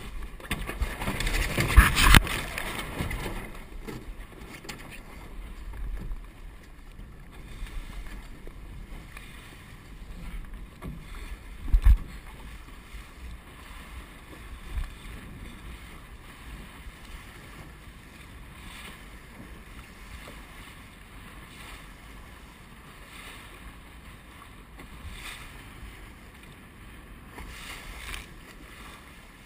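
Water rushing and splashing along the hull of a Star keelboat sailing heeled, with wind buffeting the microphone. A loud rush of water and wind comes about two seconds in, and there is a single thump about twelve seconds in.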